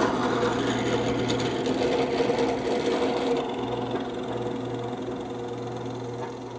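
Benchtop drill press running with a 3/4-inch bit boring into a maple board: a steady motor hum under the rasp of the bit cutting. The highest part of the cutting noise drops away about three and a half seconds in.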